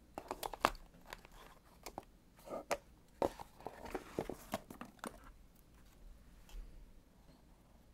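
A Lamy cardboard pen box being handled: a pen set into its tray and the box slid shut in its card sleeve, with a quick run of light clicks, taps and card rubbing. It goes quieter after about five seconds.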